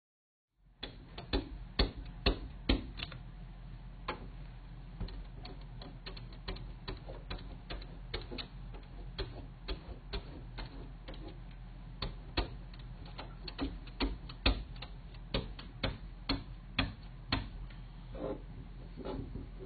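Doberman licking a glass pane: irregular sharp wet clicks and smacks of its tongue on the glass, several a second, starting about a second in, over a low steady hum.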